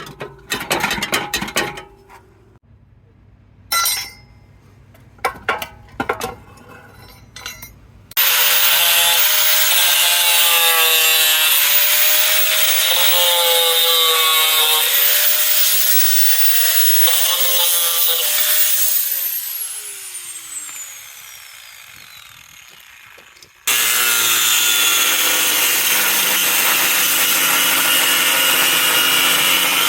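Metal tools clinking and knocking for several seconds, then a loud power tool running with a wavering whine and a hiss. It spins down with a falling pitch and starts up again near the end.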